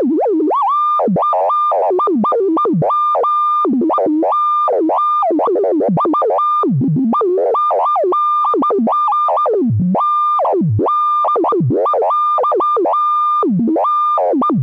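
Synthesizer tone whose pitch is driven by the Richter Wogglebug's woggle CV, with a cycling Maths voltage fed into its influence input. The pitch keeps snapping up to hold one steady high note, then sliding down in irregular, wobbly swoops, a few times a second.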